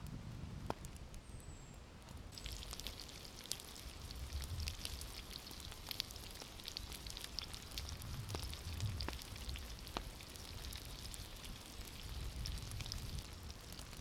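Sausages sizzling and spitting in a small long-handled pan set on campfire embers, with occasional sharp crackles from the burning wood. The sizzling comes in much louder about two seconds in and then runs steadily.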